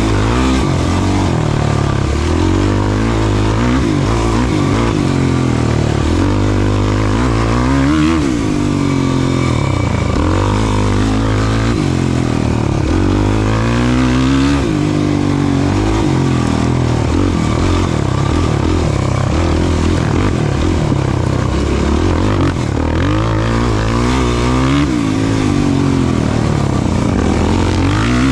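Off-road racing ATV/UTV engine running hard on course, its pitch climbing and dropping every few seconds as the throttle is opened and let off.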